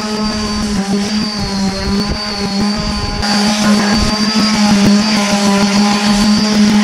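Electric random orbital sander running and sanding pine boards: a steady motor hum with a high whine over it. The sound gets louder and rougher about three seconds in.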